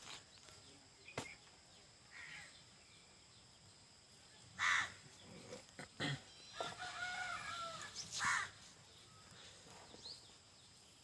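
Birds calling: two loud, harsh caw-like calls about a third of the way in and again past the middle, with a longer held call between them.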